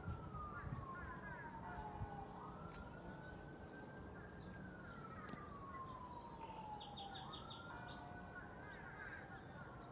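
A siren wailing: one tone that rises quickly, holds high briefly, then slides slowly down, repeating about every five seconds.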